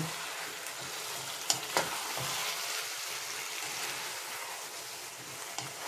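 Marinated chicken and onion-tomato masala sizzling in hot oil in a non-stick wok as it is stirred with a spatula, with a few short knocks of the spatula against the pan, two of them close together about a second and a half in.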